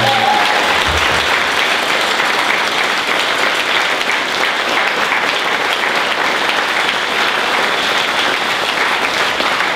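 A crowd applauding steadily, many hands clapping at once.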